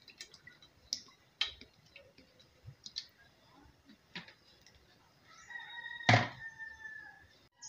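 A bird calls once in the background near the end, a single held call of about two seconds, with a sharp knock partway through it. Faint scattered clicks come before it.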